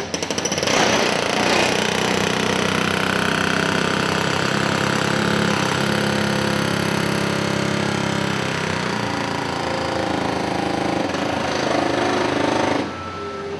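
A loud machine runs steadily, starting with rapid strokes in the first second and cutting off suddenly near the end.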